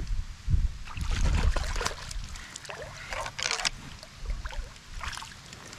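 A hooked crappie splashing at the water's surface as it is reeled in beside a kayak, with bumps and knocks against the kayak hull. The loudest splash comes about three and a half seconds in.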